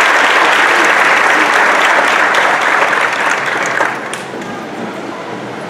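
Audience applauding in an auditorium, dying away about four seconds in.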